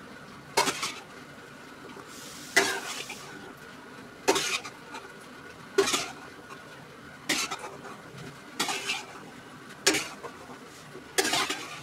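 Metal spatula scooping out of a steel pot and tipping into a stainless steel bowl: a sharp clink and scrape of metal on metal about every second and a half, eight times.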